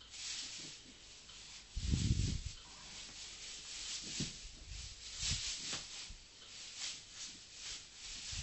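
A horse asleep, snoring, with one deep, loud snore about two seconds in and shorter ones later, over repeated rustling and scuffing as it moves in its sleep.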